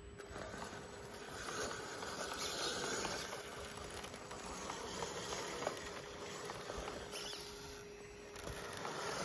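RC rock crawler climbing over rock: a faint steady electric motor whine under the tyres scrabbling and crunching on the stone, with small scattered clicks.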